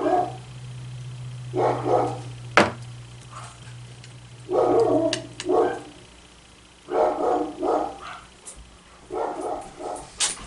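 Pet dogs barking to be let in, in short runs of a few barks each, five runs in all. A steady low hum underneath stops about six seconds in, and a single sharp click sounds between the first two runs.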